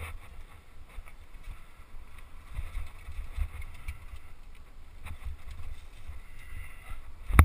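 Mountain bike rolling down rocky singletrack, heard from an action camera on the rider: a steady rumble of wind and vibration on the microphone with scattered rattles and knocks as the bike goes over rocks, and one loud knock near the end.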